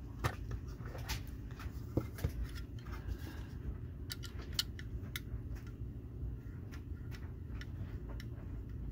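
Scattered sharp plastic clicks and taps as a diecast display case is handled and a thin pin tool is pressed into holes in its black plastic base, over a steady low hum.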